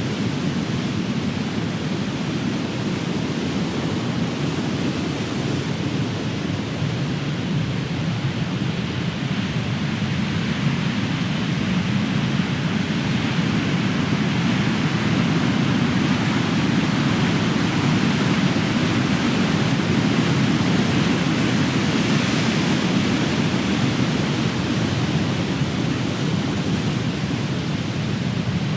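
Big ocean waves breaking and surging onto the shore in a continuous deep rumble, swelling and easing gently with each set.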